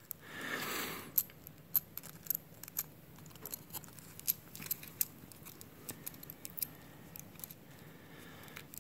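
Small metal clicks and ticks as the nuts are twisted off a wire rope clamp's U-bolt by hand, the steel nuts, threads and saddle knocking lightly together. A short soft rustle of handling noise comes in the first second.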